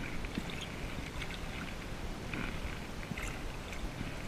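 Faint lapping and small splashes of water around a float tube as a hooked pike thrashes at the surface close by.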